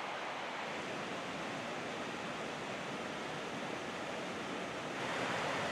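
Rocky mountain stream running over riffles: a steady rush of water, a little louder about five seconds in.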